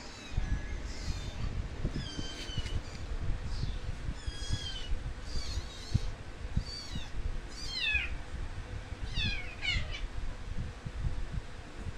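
Kittens mewing: about a dozen short, high-pitched mews, roughly one a second, a few of them falling in pitch near the end.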